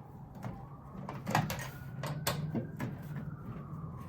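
Screws being taken out of the back cover of a CRT TV: scattered sharp clicks and knocks of the tool and screws against the plastic case, the loudest about a second and two seconds in, over a steady low hum.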